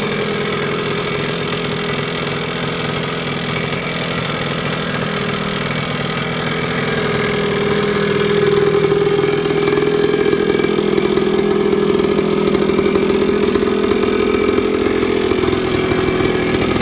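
A 1992 Yamaha RT180's single-cylinder two-stroke engine running steadily at idle, growing louder about halfway through and holding there.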